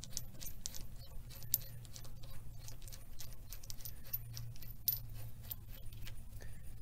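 Light, irregular metallic clicks and taps of hand tools working on the engine's camshaft sprocket bolt, over a low steady hum.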